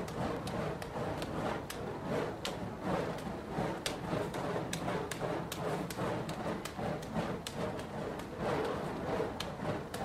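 Juggling fire torches being caught in the hands, giving short sharp knocks roughly two or three times a second at uneven spacing, over a steady background rush.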